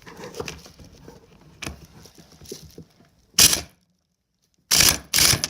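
Faint clinking of small metal parts, then three short, loud bursts of hand-tool work on the engine's clutch, two of them close together near the end.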